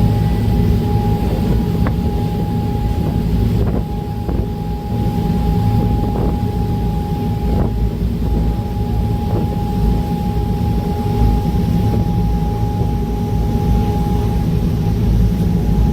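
OceanJet fast ferry's engines running steadily under way: a loud, deep rumble with a steady whine above it.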